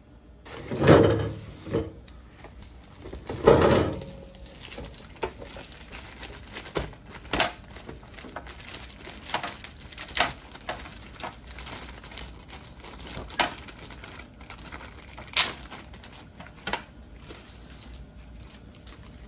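Plastic bag crinkling and crackling as it is peeled off a clear plastic mini-hoop backboard, in scattered sharp crackles. Two louder, longer rustles from handling the cardboard box come about one and three and a half seconds in.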